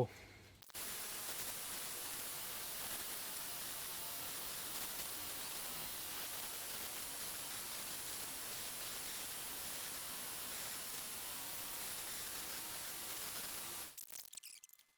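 Small grinder sanding down a kukri's handle: a steady hiss that starts just under a second in and stops shortly before the end.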